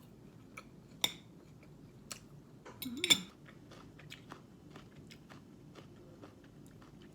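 Small clicks and clinks of cutlery and dishes being handled. There is a sharper knock about a second in and a louder cluster of clinks with a brief squeak about three seconds in.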